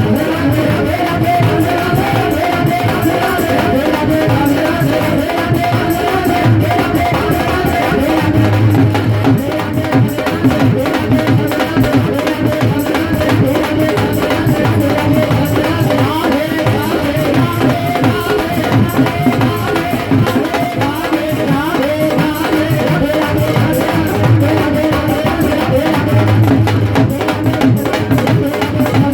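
Devotional bhajan music playing at a steady beat: hand drums and rattling percussion under a sustained melody.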